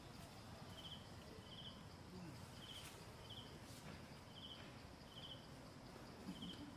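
Faint outdoor quiet with an insect chirping: short, rapidly pulsed high chirps that repeat about once a second in pairs. A faint low sound comes about two seconds in and again near the end.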